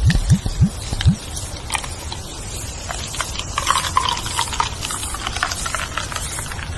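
Leaves rustling and crackling in the wind, with scattered clicks. A quick run of short, low, rising sounds comes in the first second.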